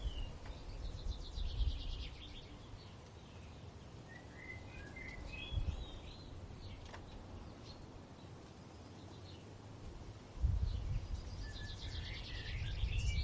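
Rainforest ambience: birds chirping and warbling in short phrases, with rapid high trills and a low rumble underneath that grows louder about ten seconds in.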